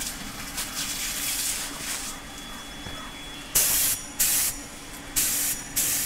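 HVLP paint spray gun spraying primer: a softer hiss early, then four short, loud trigger bursts of hissing spray, each under half a second, over a steady low hum.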